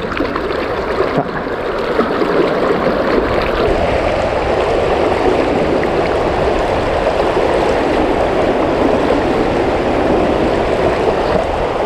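River current rushing steadily.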